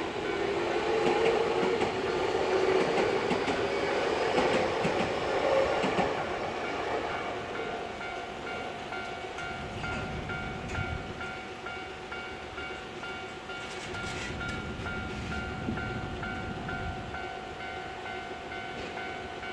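Keio Inokashira Line electric commuter train passing over the level crossing, loudest in the first few seconds and then fading. A level-crossing warning bell rings in a steady rhythm throughout.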